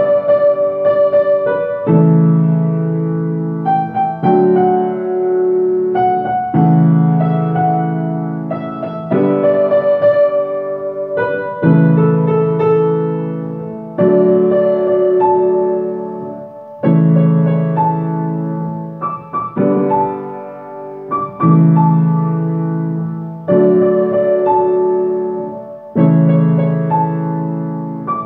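Upright piano played solo: full chords struck about every two seconds and left to ring and fade, with higher notes moving above them.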